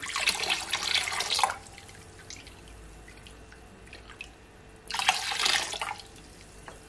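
Ginger syrup pouring into a glass bowl of lemonade and splashing for about a second and a half. A second burst of liquid splashing comes about five seconds in while the mix is stirred with a wooden spoon.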